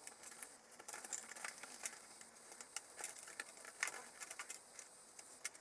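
Irregular light clicks and taps of thin plywood kit pieces being handled and pressed together during assembly of a wooden marble run.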